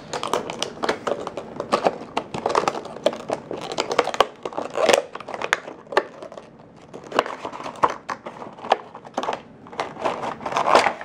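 Clear plastic clamshell packaging crinkling and crackling as it is handled and pried open by hand, with many irregular clicks and snaps.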